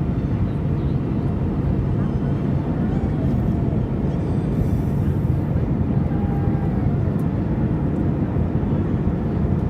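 Steady low rumble of a jet airliner.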